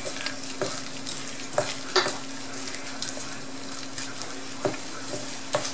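Gloved hand squishing and mixing wet ground pork meatball mixture in a stainless steel bowl, with a few sharp taps of the hand against the bowl, the loudest about two seconds in. A steady low hum runs underneath.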